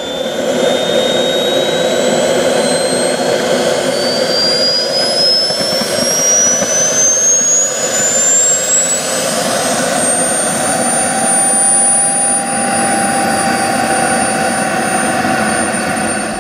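RC model jet's turbine engine starting up: a whine that climbs steadily in pitch for about ten seconds, then holds at a steady high pitch at idle, over a constant rushing noise.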